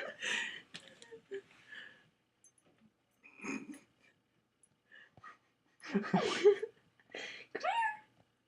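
Dog whimpering and whining in several short bursts, with rising whines near the end.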